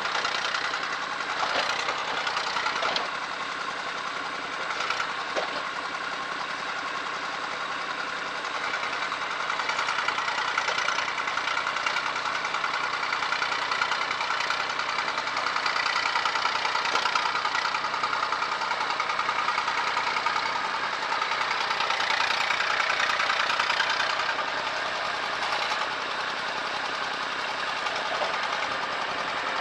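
Massey Ferguson MF20C loader tractor's engine running steadily as the loader works dirt. It grows louder from about ten seconds in until about twenty-four seconds, with a few sharp knocks in the first few seconds.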